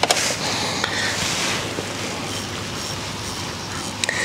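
Steady rushing noise of wind on the microphone, with a sharp click just after the start and another near the end.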